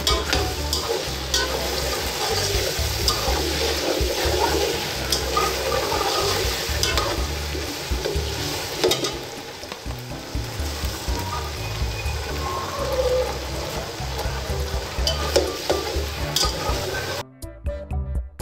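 Diced potatoes sizzling as they fry in oil in an aluminium pot, with a metal slotted turner scraping and clinking against the pot as they are stirred. The frying cuts off suddenly about a second before the end, leaving background music.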